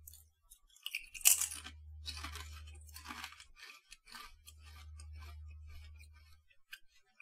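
A thick crinkle-cut Calbee potato chip bitten with a loud crunch about a second in, then chewed with a run of quieter crunches. The crunch is hard, more like stepping on ice than on fresh snow. A low hum comes and goes underneath.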